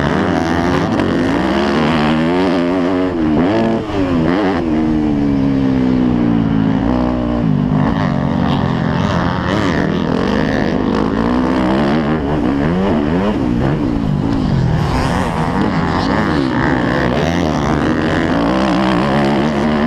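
250cc dirt bike engine being ridden hard, its revs rising and falling again and again as the throttle is opened and closed.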